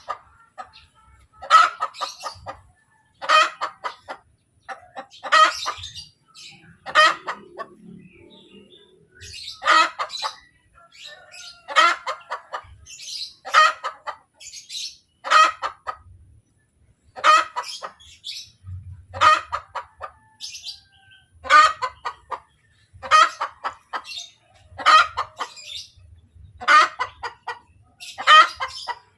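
Hen cackling after laying an egg: a loud call repeated about every two seconds, each one a quick run of clucks.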